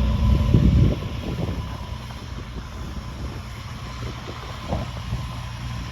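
Cirrus SR22's six-cylinder piston engine and propeller running on the ground, loud at first, then dropping off sharply about a second in to a quieter steady hum.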